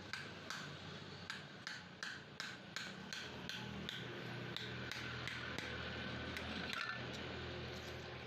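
A hammer striking metal over and over, each blow ringing, about two to three strikes a second, the blows coming faster and then fading about halfway through. A steady low hum fills the second half.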